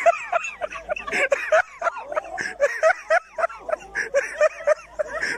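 Several people laughing in quick, high-pitched bursts that overlap and repeat throughout.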